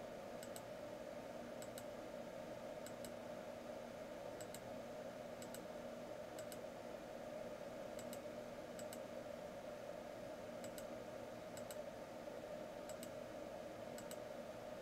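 Computer mouse button clicking about once a second at an uneven pace, each click a quick double tick of press and release, over a faint steady hum.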